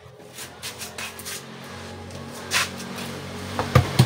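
Light clicks and clatter of things being handled, with a few sharp knocks near the end, over a low steady hum.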